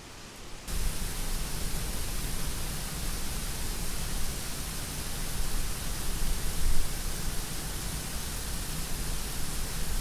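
A faint hiss cuts, under a second in, to the loud, steady rush of a small waterfall, white water cascading over rocks in a mountain stream.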